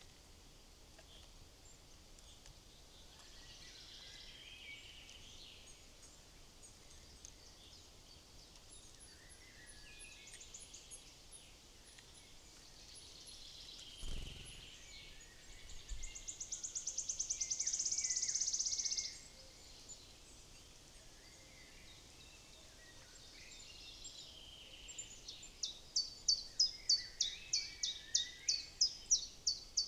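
Woodland songbirds calling and singing. Just past the middle, a fast high trill runs for about three seconds; near the end comes a run of loud repeated notes, about four a second. A single low thump comes a little before the middle.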